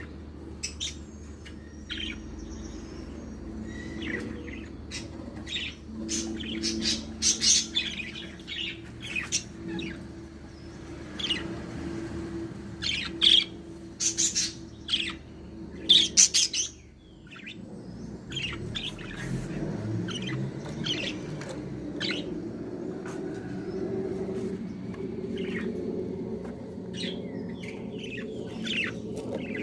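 Budgerigars chirping and chattering in many short, high calls, loudest and busiest in the first half and thinner after about seventeen seconds, over a low steady hum.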